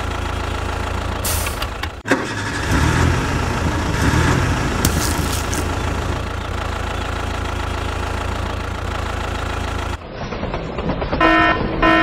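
Tractor engine running steadily, with a short knock about two seconds in and a louder stretch for a few seconds after. About ten seconds in it gives way to a toy train's electronic sound: a pulsing tone of several pitches, on and off about twice a second.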